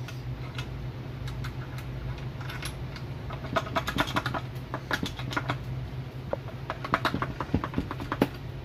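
Light metallic clicks and clinks of parts being handled as the accumulator is worked off a Honda automatic transmission's valve body, coming in quick clusters from about a third of the way in. A steady low hum runs underneath.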